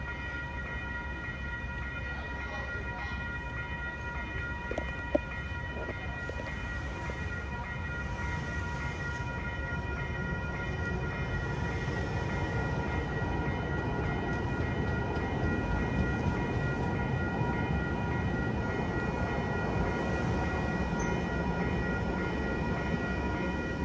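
Electronic railroad crossing bell ringing steadily at a grade crossing with its gates down. A light-rail trolley comes up and rolls through the crossing, its low rumble building over the middle of the clip. One sharp click a few seconds in.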